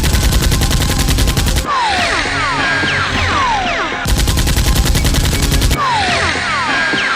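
Dubbed automatic-gunfire sound effect: two rapid bursts, each about a second and a half, each followed by a run of falling, whistling tones.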